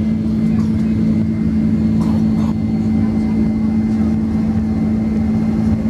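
Boeing 767-300 cabin noise in flight: a loud, steady jet engine and airflow drone with a constant low hum and a faint high whine.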